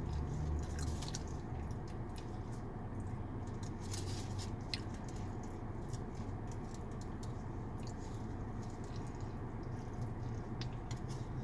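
Close-up wet chewing of a burrito: many small squishy, sticky mouth clicks at an uneven pace, over a steady low hum.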